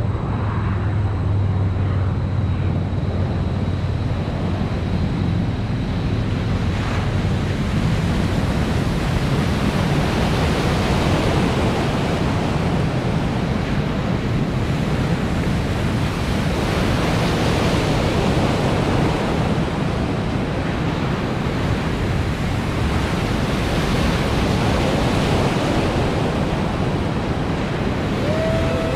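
Waves in an artificial surf pool breaking and rushing, a continuous noisy wash of water that swells and fades over several seconds.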